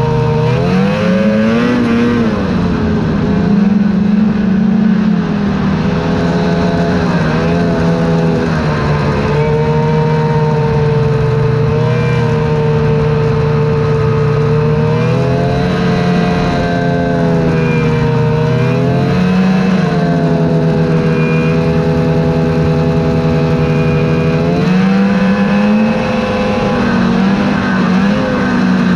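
Snowmobile engine running while riding. Its pitch rises and falls several times as the throttle is opened and eased off.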